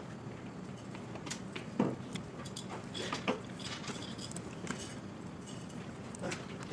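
A banana being peeled and eaten at a desk: soft handling noises with a short thud just under two seconds in and a few light clicks, over a steady background hiss.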